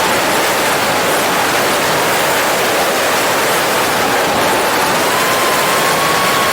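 DJI FPV drone's motors and propellers in flight, heard from a camera mounted on the drone: a steady rush of prop wash and wind with a thin motor whine that rises slightly about five seconds in.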